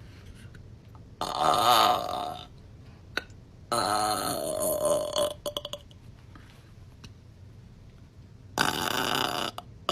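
A young woman burping loudly three times: a burp about a second in, a longer drawn-out one around four seconds, and a third near the end, each with a wavering pitch.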